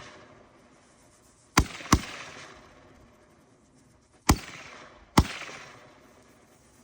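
Fox Fireworks Puff Puff Pass bar Roman candle firing: four sharp bangs in two close pairs, each trailing off.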